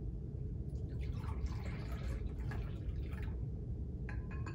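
Liquid poured from a pottery pitcher into a communion chalice: a splashing trickle lasting about two and a half seconds, then a few short ringing notes near the end.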